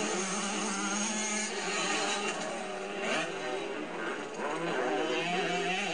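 Motocross motorcycle engines revving, their pitch rising and falling as the bikes race over the dirt track. The sound is thin and bass-less, heard as old camcorder audio replayed through a TV speaker.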